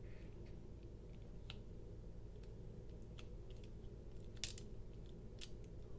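Faint, scattered small metal clicks of a precision screwdriver turning a screw in a Tuyaknife Kingsman V2 folding knife's handle, over a low steady hum. The sharpest clicks come about four and a half seconds in and again a second later.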